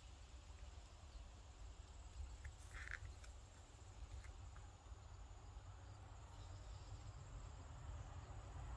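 Quiet outdoor ambience: a steady low rumble, with a few short, high chirps just under three seconds in.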